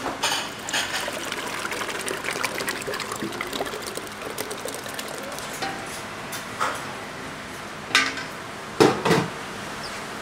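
Thick sauce sloshing and pouring out of a stainless steel pot into a metal container, then a spatula scraping the pot. A few sharp metal clanks near the end are the loudest sounds.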